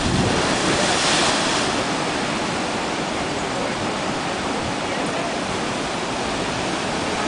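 Atlantic surf surging into a narrow rock crevice. Spray hisses loudest about a second in, then the water keeps up a steady churning rush.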